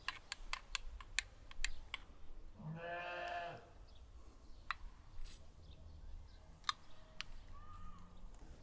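A metal spoon clicks sharply several times against a glass bowl. About three seconds in comes a single bleat, about a second long, and a few more spoon clicks follow later.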